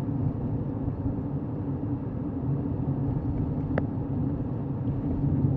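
Steady low rumble of a car, with one short faint click about four seconds in.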